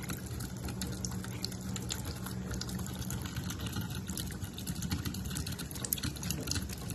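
Kitchen tap running a thin stream of water into a stainless steel sink, a steady splashing hiss, with small irregular clicks and splashes as a cat laps at the stream.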